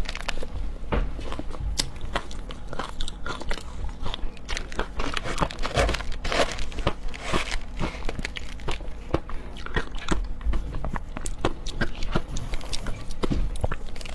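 Ice being bitten and chewed: a dense, irregular run of sharp crunches and crackles that goes on without a break.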